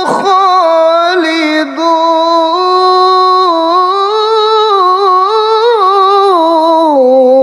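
A male qari's voice reciting the Quran in melodic tilawah style, drawing one word out into a long melismatic phrase with wavering, ornamented pitch. There is a brief break about two seconds in, and the pitch falls to a lower note near the end.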